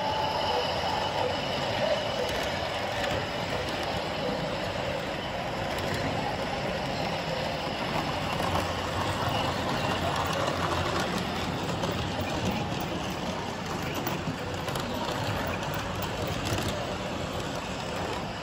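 Model electric trains running on a layout, a steady rolling rumble and hum blended with the general din of a busy show hall.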